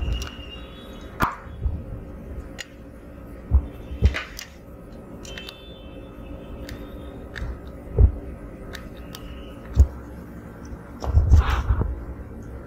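Scattered knocks and clicks from handling a printed circuit board in its metal chassis and touching it with multimeter probes, with a cluster of knocks near the end, over a steady low hum.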